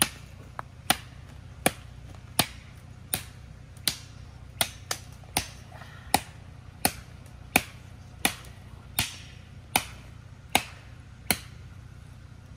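Repeated chopping strikes on a thin standing tree trunk: sharp single hits in a steady rhythm, about one every three-quarters of a second.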